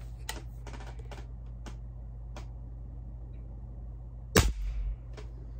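Diana 48 side-lever spring-piston air rifle in .177 firing one shot about four seconds in: a single sharp report with a short tail that dies away in about half a second. A few faint clicks come before it and one more just after.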